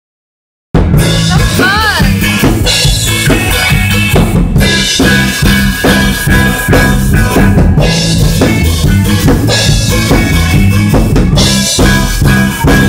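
Live rock band playing loud through amplifiers: drum kit with bass drum and snare keeping a steady beat under bass and electric guitar. The music cuts in suddenly under a second in, with a note that bends up and back down about two seconds in.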